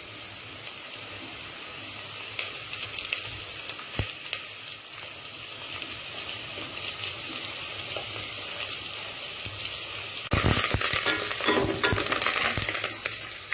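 Sliced onions and whole spices sizzling steadily as they fry in oil in an aluminium pot, the onion sauté for a curry base. About ten seconds in it gets louder as a metal ladle stirs and scrapes through the pot.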